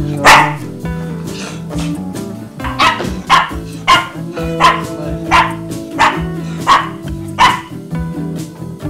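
Small dog barking: one loud bark right at the start, then a run of about eight short barks at an even pace, roughly one and a half a second, over background guitar music.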